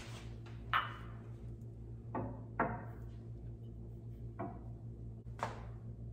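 Drinking glasses clinking and knocking as they are set down on a cabinet shelf: about six separate sharp clinks, each with a short ring, over a steady low hum.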